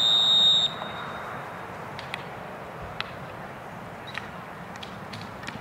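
Umpire's whistle: one high steady blast that stops under a second in. Then a few sharp clicks of field hockey sticks striking the ball as play restarts.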